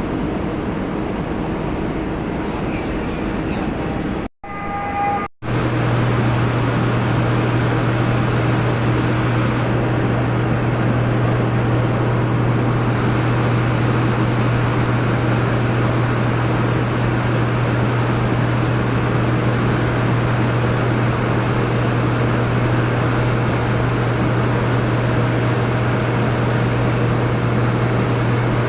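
Steady loud machinery noise with a constant low hum, breaking off twice briefly about four to five seconds in; after the breaks the low hum is stronger.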